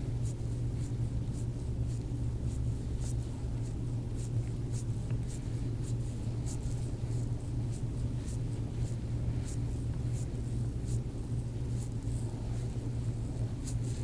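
A steady low hum, with faint irregular crackling ticks through it from fingers moving in hair as the hands work under the head and neck.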